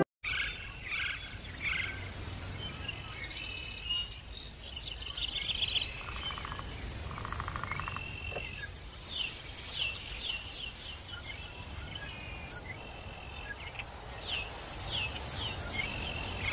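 Birds chirping and calling, with runs of short quick notes, over steady outdoor background noise.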